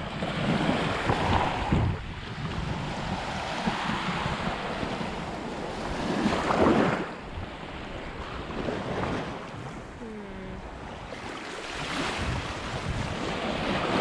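Small surf washing up over the sand at the water's edge, swelling louder three times as waves come in, with wind buffeting the microphone.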